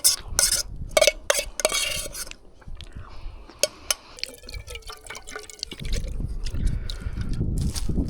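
A spoon clinking and scraping against a metal cooking pot of wet oatmeal, with wet liquid sounds, over the first few seconds. A low rumble comes in about six seconds in.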